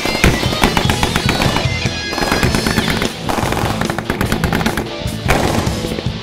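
Rapid machine-gun fire from armoured cars on a firing range, many sharp shots in quick succession, mixed with background music.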